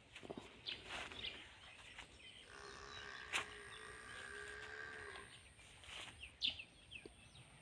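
One long, steady moo from a bovine, held for nearly three seconds beginning a couple of seconds in, with a sharp click partway through it. Birds chirp briefly before and after.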